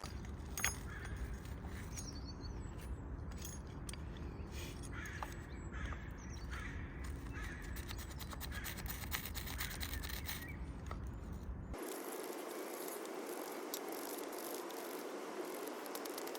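Birds calling over a low rumble, with scattered light ticks. About twelve seconds in, the sound changes abruptly to an even hiss without the rumble.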